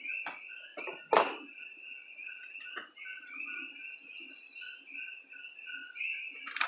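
A few sharp knocks from a hand-held aluminium cylinder head being handled and turned, the loudest about a second in. Under them runs a steady high two-tone chirping, pulsing several times a second.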